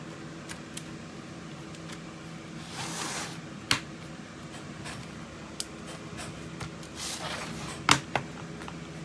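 Small clicks and taps of laptop parts being handled during a battery swap, with two louder knocks and two brief rustling swishes, over the steady hum of a room fan.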